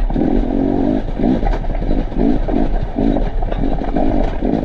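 Enduro motorcycle engine being ridden over a rocky trail, the throttle opened and closed repeatedly so the engine note rises and falls in quick, uneven surges.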